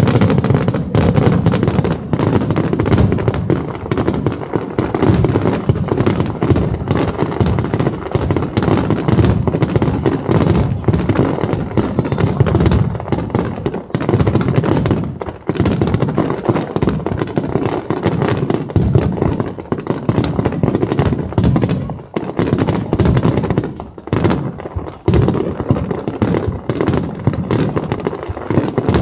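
Fireworks going off in a rapid-fire barrage: many bangs and crackles overlapping densely with hardly a break, loudness dipping only briefly now and then.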